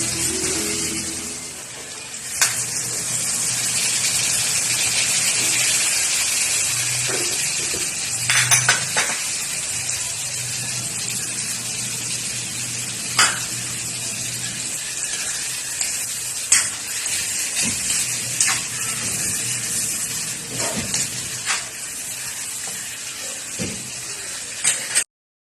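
Chicken gizzard adobo frying in a pan, a steady sizzle with scattered sharp clicks of a cooking utensil against the pan. The sound stops abruptly near the end.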